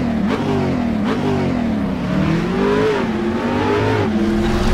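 Car engine revving, its pitch rising and falling several times as the throttle is blipped, then holding a steadier note near the end.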